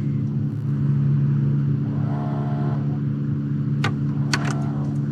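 Steady low drone of a motor running at an even pitch, with a few short sharp ticks near the end.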